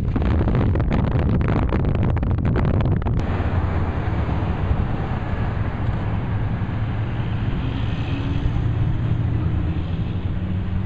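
Union Pacific 844, a 4-8-4 steam locomotive, and its train passing close by: a loud low rumble with many rapid clicks. About three seconds in the clicks stop and a steadier low rumble with wind noise takes over.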